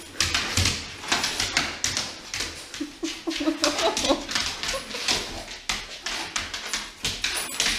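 A large dog's claws clicking and scrabbling on a hardwood floor as it jumps around excitedly, with a short run of whimpering whines about three to four seconds in.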